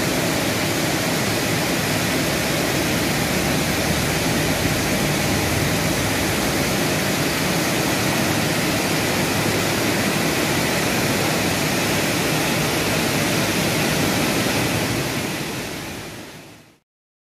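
Steady rushing, hissing noise of car wash machinery and running water, fading out near the end.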